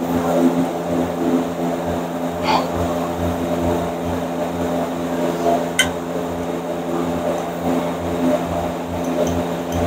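A motor running with a steady hum and an uneven low throb, growing louder at the start, with one sharp click about six seconds in.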